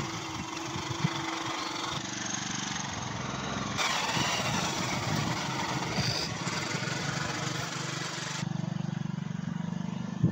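A small engine running steadily under a broad outdoor noise, with the sound changing abruptly a few times.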